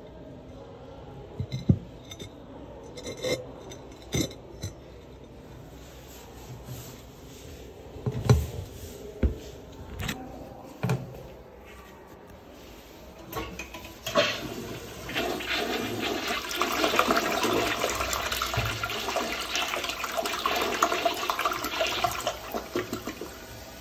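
Several scattered knocks and clicks, the loudest a little past a third of the way in, then a Daelim Bath CC213 toilet flushing: a sudden steady rush of water into the bowl that goes on to the end.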